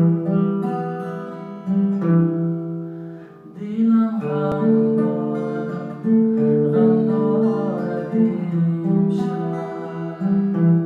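Music: an instrumental passage of long, held notes with plucked strings, changing note every second or two.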